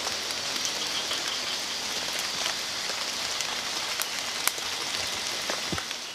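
Steady rain falling, an even hiss with a few scattered sharp ticks of drops.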